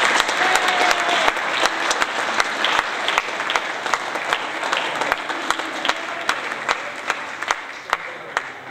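Audience applauding, many hands clapping, thinning and dying down toward the end.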